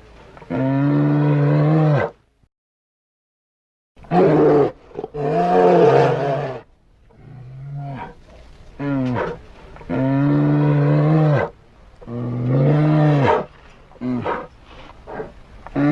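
Brown bear roaring: a series of low, drawn-out roars, each one to two seconds long, with a short silence about two seconds in.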